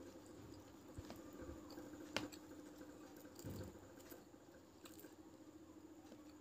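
Faint chewing with a few light clicks of a metal fork and spoon in a paper cup of noodle soup, the sharpest click about two seconds in.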